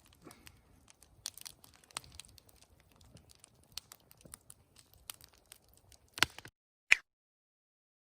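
Faint rustling and crinkling with many small scattered clicks and ticks. About six seconds in there is a sharp click and the sound cuts off to dead silence, broken by two short, sharp clicks near the end.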